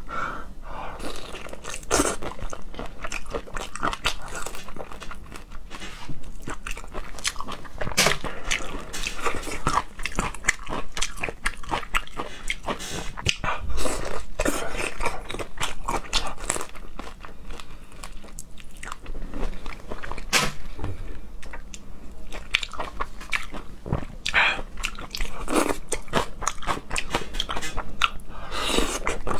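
Close-miked eating of whole shrimp in a wet chili marinade: biting, crunching and chewing, with a thick run of small wet clicks and a few louder crunches here and there.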